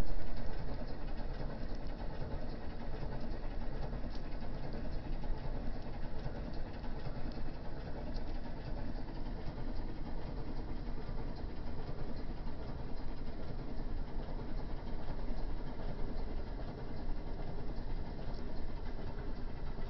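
Steady low mechanical drone with a few faint humming tones, the running noise of industrial plant machinery.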